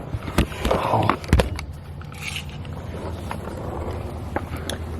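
A few light knocks and scrapes, mostly in the first second and a half, over a low steady hum.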